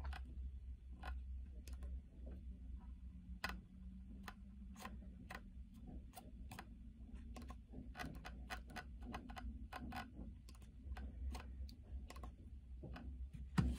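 Logitech MX Anywhere 3 mouse clicking faintly as its metal scroll wheel and the button behind it are worked: irregular sharp clicks, a few a second, coming faster past the middle, over a low steady hum.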